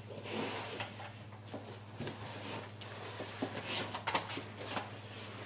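Scattered rustling and light knocks of objects being handled and moved about, over a steady low hum.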